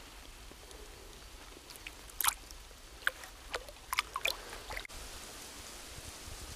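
Splashing and sloshing in shallow stream water as a hand lowers a caught fish in and releases it: a run of sharp, irregular splashes, the loudest about two seconds in, over a faint steady hiss of moving water.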